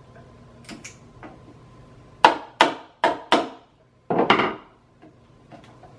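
A wood-handled soft-faced mallet striking the end of a steel chisel four times in quick succession, driving it into the flange seam of a fiberglass mold to split the mold from its plug. About four seconds in comes a longer, rougher crunching noise as the chisel is levered in the seam.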